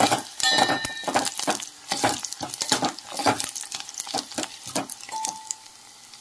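Metal spoon stirring and knocking against a pan of sizzling tempering (onions and spices frying in oil), a quick irregular run of clinks and crackles that eases off about five seconds in.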